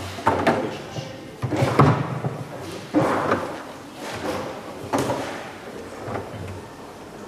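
Table football being played on a Leonhart foosball table: the ball and the plastic players clack and knock hard, with about five sharp hits spread irregularly through the rally.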